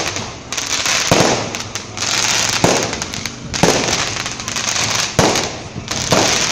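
Aerial fireworks going off in quick succession: sharp bangs about once a second, with crackling and hissing in between.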